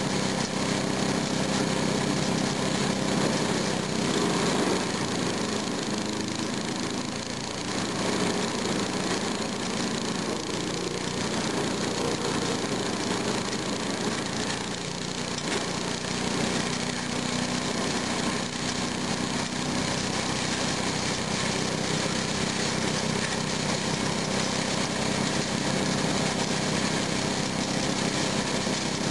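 Small gasoline engine of a Kemp chipper-shredder running steadily while branches are fed into the hopper. The note sags briefly about seven seconds in and again about fifteen seconds in.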